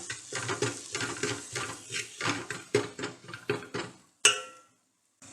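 A metal spoon scrapes and clinks in a cooking pan as a thick masala is stirred, in quick, uneven strokes. About four seconds in comes a single louder metal clank that rings briefly.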